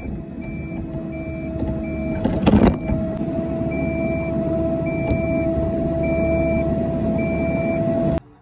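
Cat 249 compact track loader's diesel engine running steadily, with its backup alarm beeping in regular pulses. A loud clank comes about two and a half seconds in, and the sound cuts off suddenly near the end.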